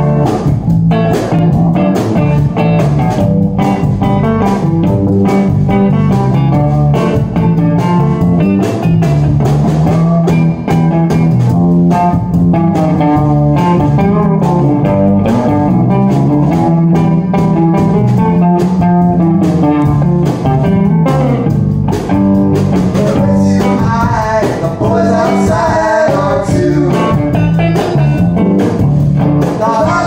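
Live band music: electric guitars, one a hollow-body archtop, playing over a steady drum beat.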